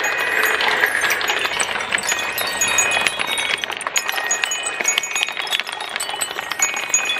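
Many marbles rolling down a marble run, a dense stream of clicks and clinks as they strike aluminium deflector bars and wooden channel walls. The bar strikes leave short, chime-like metallic rings.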